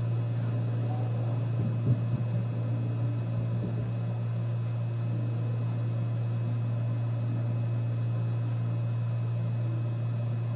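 Steady low mechanical hum, like a motor or appliance running, with a small knock about two seconds in.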